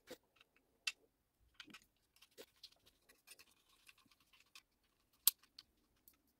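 Faint scattered clicks and scrapes of a small screwdriver turning screws through a 3D-printed plastic mount into a stepper motor, with one sharper click about five seconds in.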